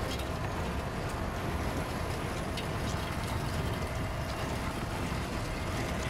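Heavy tow truck under load dragging a semi-trailer sideways across a snow-covered highway: a steady low rumble with a faint constant whine and a few scattered sharp ticks.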